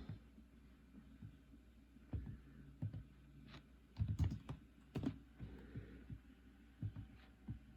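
Soft, irregular knocks and clicks of objects being handled and set down, with a cluster of louder knocks about four to five seconds in.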